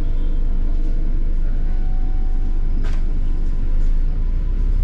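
London double-decker bus running along the road, heard from inside: a steady, deep engine and road rumble. There is one sharp knock or rattle about three seconds in.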